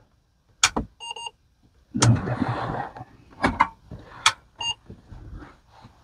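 Sharp switch clicks, twice each followed within half a second by a short electronic beep from the Apple II Plus, the first beep longer than the second. Between them, about a second of rustling and a few knocks from handling.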